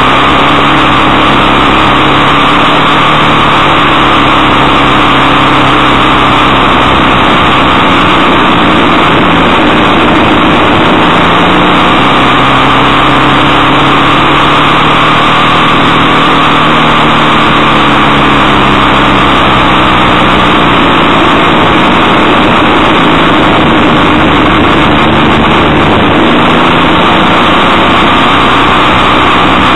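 Motorcycle engine running while riding, its pitch slowly rising and falling a few times with the throttle, under a loud steady rush of wind and road noise.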